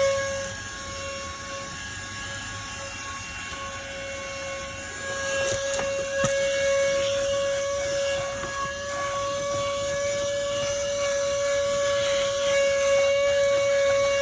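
Tzumi IonVac cordless handheld vacuum running with a steady, high motor whine. It is quieter for a few seconds near the start and louder again after about five seconds, with a few faint knocks.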